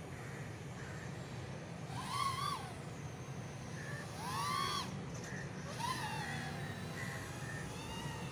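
3-inch FPV micro racer quadcopter's motors and propellers whining in four throttle bursts, the pitch rising and then falling each time, over a steady low background noise.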